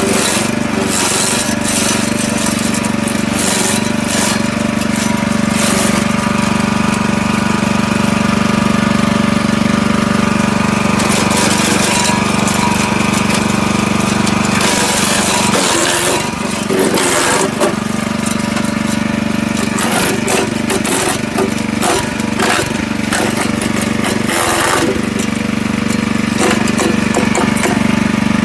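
Forest Master FM6DD wood chipper's 6 hp petrol engine running steadily, with irregular cracking and clattering from its cutters. The engine note wavers and sags briefly about halfway through and again near the end.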